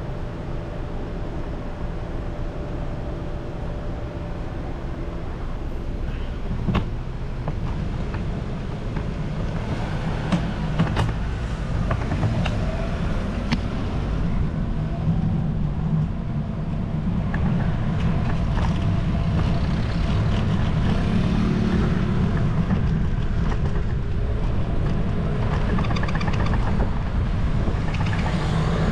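Street traffic and road noise heard from a moving bicycle: a steady low rumble with cars passing, and a few sharp clicks.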